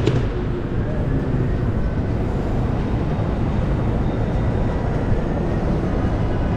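Steady city street noise: a continuous low rumble of traffic.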